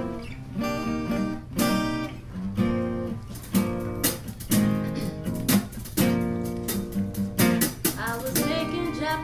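Acoustic guitar strumming chords, playing the instrumental opening of a song before the singing comes in.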